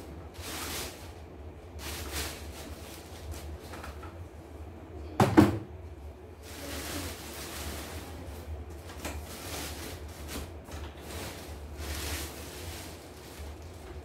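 Cardboard packing and plastic wrapping rustling and crinkling in uneven bursts as an embroidery machine is unpacked from a box, with one loud thump about five seconds in.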